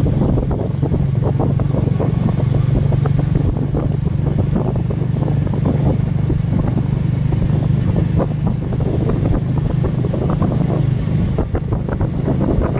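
Small motorcycle engine running steadily while riding, with a constant low hum. Irregular wind buffeting on the microphone is mixed in.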